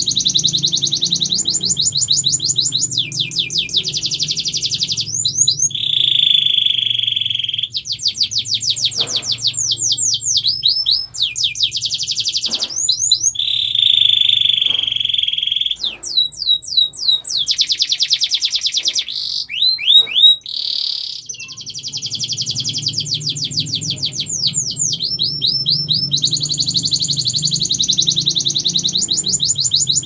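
Domestic canary singing continuously: fast trills of rapidly repeated high notes, switching from one rolled phrase to the next, with two flatter, buzzing phrases in between. A low hum runs underneath and drops out briefly about two-thirds of the way through.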